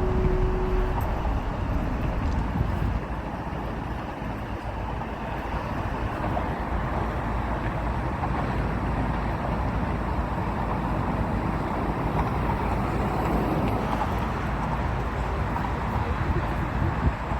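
Steady rumble of distant engine noise, even and unbroken, with no single pass standing out.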